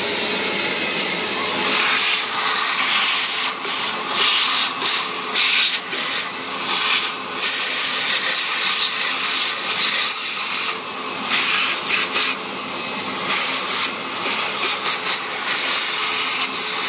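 Vacuum cleaner running, sucking leftover coffee grounds out of a flat-burr grinder's burr chamber. The steady hiss dips briefly again and again as the nozzle is moved about.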